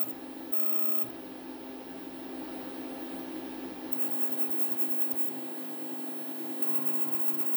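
CNC milling machine's motors running, a steady hum with whining tones that switch off and on several times.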